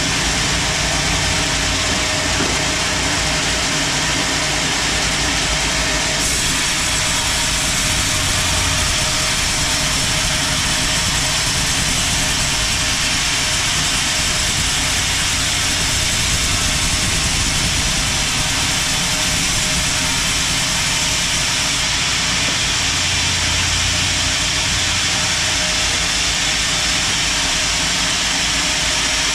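Sawmill band saw running steadily with its drive motor: a continuous loud hiss over a low hum.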